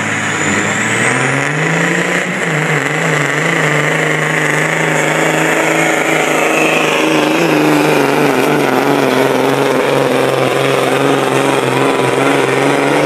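Diesel engine of a pulling semi truck running flat out under heavy load as it drags the weight sled. Its pitch rises over the first couple of seconds, then holds steady and loud.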